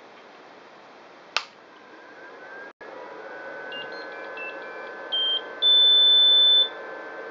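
Anycubic Chiron 3D printer starting up: over a steady hum, a single click, a few faint short chirps, then a short beep and a long steady high beep of about a second from the printer, as its touchscreen comes up.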